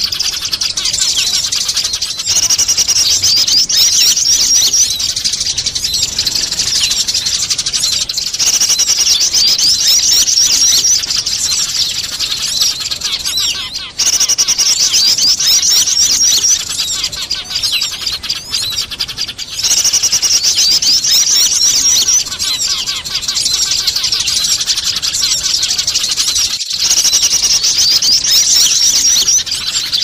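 Bird-lure recording of many small birds chattering, with Eurasian tree sparrows squabbling among them: dense, rapid, high chirping. Loud stretches of a few seconds alternate with quieter chatter.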